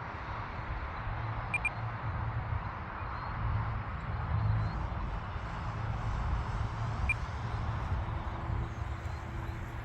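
Gusty wind buffeting the microphone outdoors, a rough, uneven rumble that rises and falls, with a faint steady hum joining near the end.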